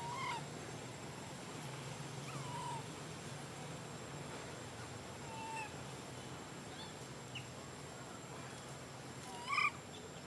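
A baby macaque giving short, high, squeaky cries, about five of them a couple of seconds apart, the loudest near the end.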